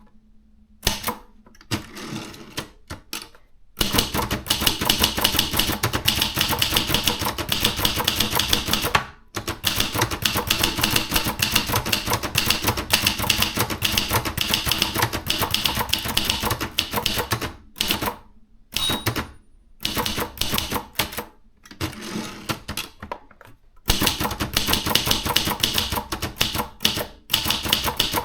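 Maritsa 30 portable manual typewriter being typed on: runs of rapid typebar strikes on the platen, with a few short breaks and slower scattered keystrokes between the fast runs.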